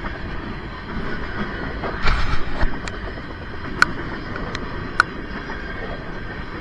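Freight train cars rolling past: a steady rumble of steel wheels on rail, with a louder clatter about two seconds in and a few sharp clicks after it.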